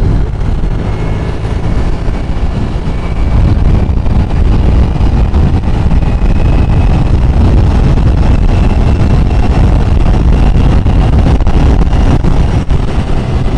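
Wind buffeting the microphone of a moving scooter, with the scooter's engine running underneath as a steady low rumble; it grows louder a few seconds in, as if the scooter picks up speed.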